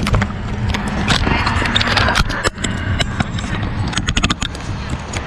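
Steady wind and road rumble from riding on a road bicycle, with clusters of sharp clicks and rattles about a second in, between two and two and a half seconds, and around four seconds.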